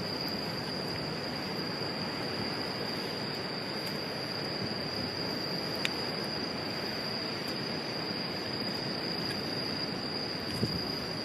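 Steady high-pitched insect chorus over an even hiss, with one faint click about six seconds in.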